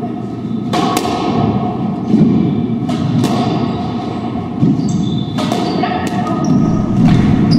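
Squash ball being hit by racquets and smacking off the court walls during a doubles rally, several sharp hits each ringing out in the echoing court. Short high squeaks of court shoes on the wooden floor come in the second half.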